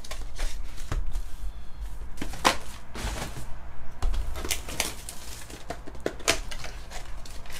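Plastic shrink-wrap crinkling and crackling as a sealed box of trading cards is handled and unwrapped, with scattered taps and rustles of hands on the box.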